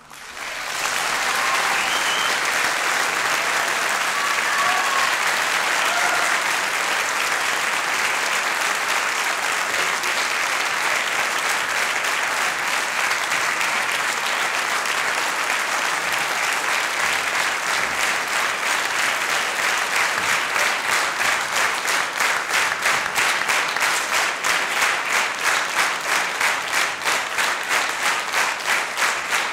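Concert-hall audience applauding, a dense even clapping that about two-thirds of the way through turns into rhythmic clapping in unison, roughly two to three claps a second.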